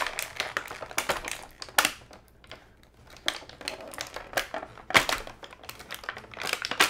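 Clear plastic blister packaging crinkling and crackling in irregular sharp snaps as hands pull a toy dinosaur figure out of it, quieter for a moment about two seconds in.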